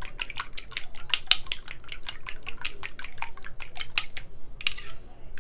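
A spoon rapidly stirring a thick egg, yogurt and oil mixture in a small bowl, clicking against the bowl several times a second. The stirring stops about four seconds in, with one brief burst after it.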